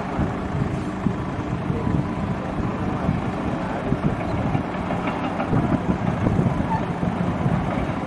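Large crawler bulldozer's diesel engine running steadily under load, with irregular clanks and rattles from the machinery.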